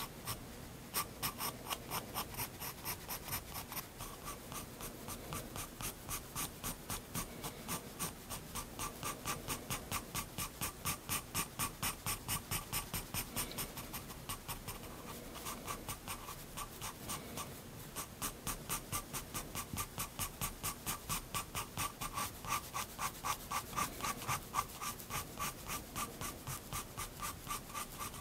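Soft 7B graphite pencil (Prismacolor Turquoise) scratching on sketchbook paper in quick, even back-and-forth shading strokes, about four a second, with a couple of brief pauses.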